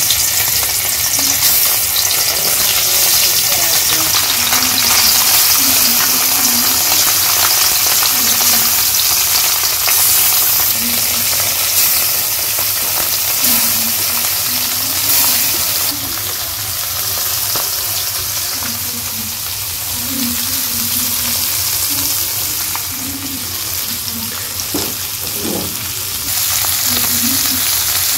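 Small whole fish frying in hot oil in an iron kadai, a steady hissing sizzle. It is a little quieter from about halfway through until near the end.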